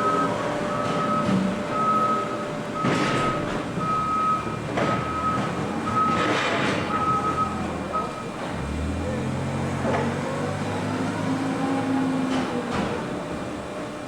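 A vehicle's reversing alarm beeping at a steady pace, about one beep every two-thirds of a second, stopping about eight seconds in, over the running of machinery and an engine whose pitch rises and falls afterwards. A couple of louder noisy surges break in around three and six seconds in.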